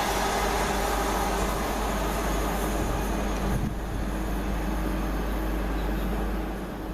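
Class 350 Desiro electric multiple unit passing through a station: steady wheel-on-rail rumble with a faint motor hum, dropping off after about three and a half seconds and fading away.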